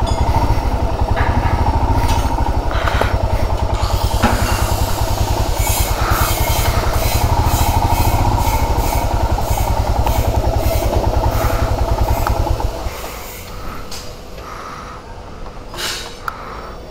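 Royal Enfield Himalayan's single-cylinder engine running with an even low thudding as the bike rolls slowly and then idles, cut off suddenly about 13 seconds in; after that only faint street background and a few short clicks.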